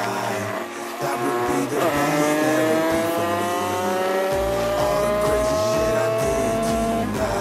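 Vehicle engine accelerating, its pitch rising steadily for about five seconds, with music playing underneath.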